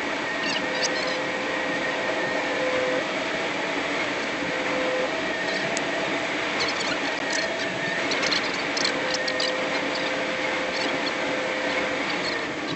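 Vehicle on the move, heard from inside: a steady road rush with scattered sharp ticks and a thin whine that comes and goes.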